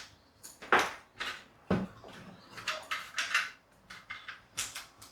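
Irregular clicks, knocks and rattles of small objects being handled and set down, the loudest a sharp knock about three-quarters of a second in.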